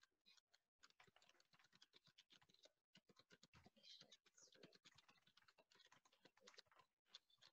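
Very faint, rapid keystrokes on a computer keyboard as a line of text is typed.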